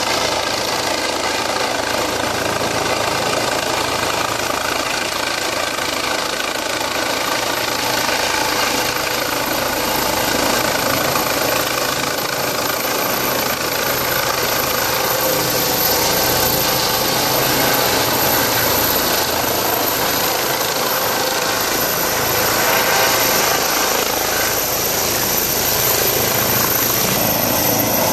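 Eurocopter EC135 air ambulance helicopter, its main rotor, turbines and shrouded tail rotor running in a steady loud drone as it comes in and descends to land, growing a little louder in the second half.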